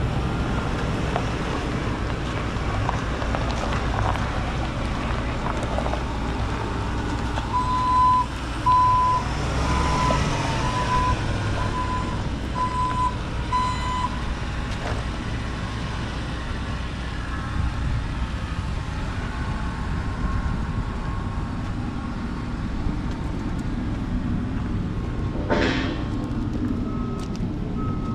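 A vehicle's reverse alarm beeps about eight times, evenly spaced, over a steady low outdoor rumble. A sharp knock comes near the end, followed by a second, slightly higher-pitched reverse alarm starting up.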